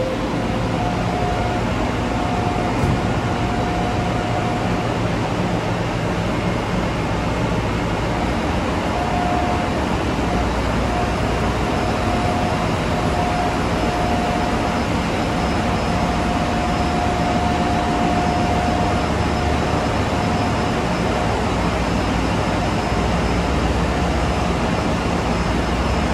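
Ship's engine room machinery running: a loud, steady mechanical noise of engines, generators and pumps blended together, with a low hum and a faint steady whine that comes and goes.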